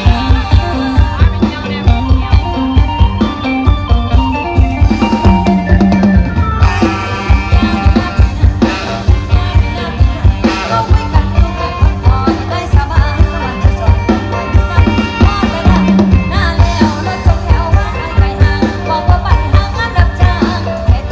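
Live Thai mor lam band playing a song over a steady drum-kit beat, with electric guitars and keyboard, and a woman singing over parts of it.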